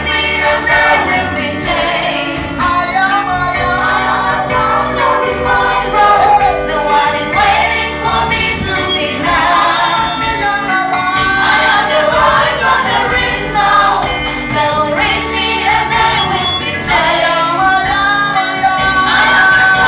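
Gospel worship music: a group of voices, women's voices among them, singing over a steady accompaniment.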